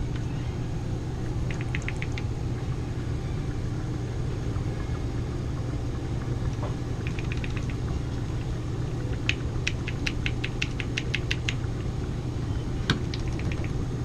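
Short runs of rapid clicking as a plastic fitting on a PVC condensate drain connection is twisted by hand, over a steady low mechanical hum. The longest run, about a dozen clicks, comes a little past the middle.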